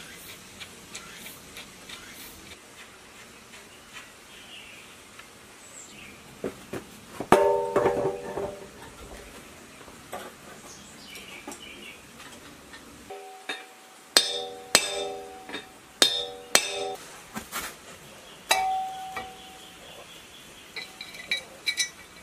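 Metal engine parts being handled and fitted: sharp clinks and knocks, several of them followed by a short ringing of struck metal, bunched about seven seconds in and again from about fourteen to seventeen seconds.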